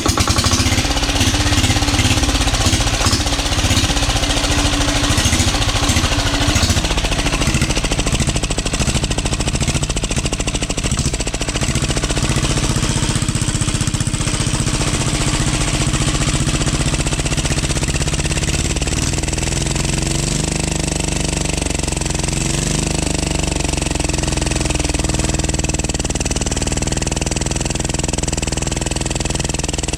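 Overhauled 12 HP air-cooled low-speed diesel engine starting abruptly and running, now turning freely again. It runs unevenly for about the first ten seconds, then settles to a steady run.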